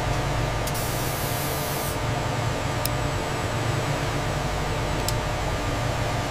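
Steady mechanical hum with a hiss over it. A brighter hiss comes in about a second in and lasts about a second, and two faint ticks follow later.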